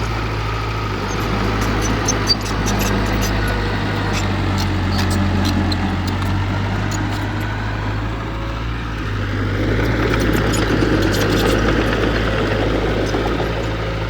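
Heavy-equipment diesel engine running steadily, with one short knock about two seconds in.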